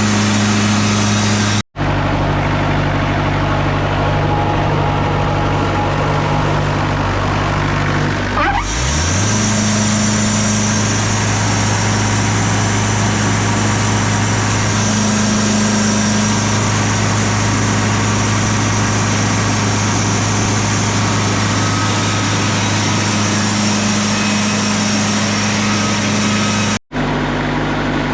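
Wood-Mizer LT40 Super Hydraulic bandsaw mill running steadily on its engine, with a short downward glide in pitch about eight seconds in. The sound cuts out for an instant twice.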